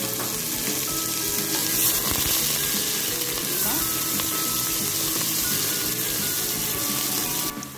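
Chopped red onions sizzling steadily in hot oil in a stainless steel pot as they start to fry; the sizzle stops abruptly near the end.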